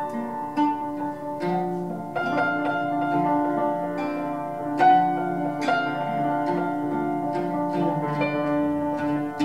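Oud and grand piano playing a duet: a stream of plucked oud notes over held piano notes.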